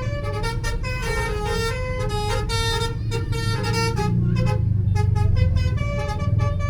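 Bus 'telolet' horn, a multi-tone air horn, playing a melody of short stepped notes with a few longer held ones, over a steady low engine rumble.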